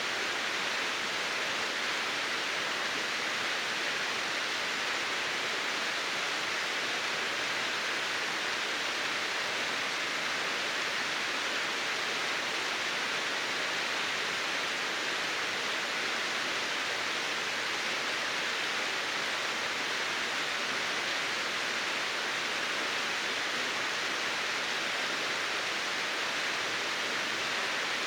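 Steady, even rush of water falling at a partly frozen waterfall.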